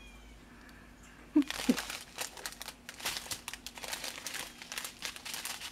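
Small clear plastic zip-lock bags of diamond painting drills crinkling as they are handled, starting about a second and a half in after a quiet start.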